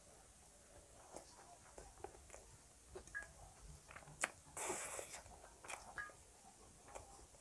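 A person chewing food with her mouth closed: quiet, scattered wet clicks and smacks, with a short breathy rush of noise a little past the middle.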